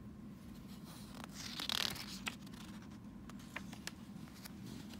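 A picture-book page being turned: one short papery swish about a second and a half in, with light paper clicks and rustles around it.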